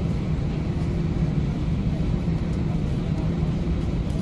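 Airbus A319 cabin noise beside the wing as the jet rolls along the runway: a steady low rumble of the engines and the wheels, with a faint steady hum.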